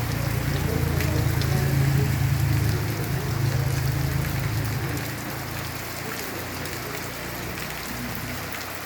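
Heavy rain falling and pattering on surfaces, with a low rumble underneath that fades away about five seconds in.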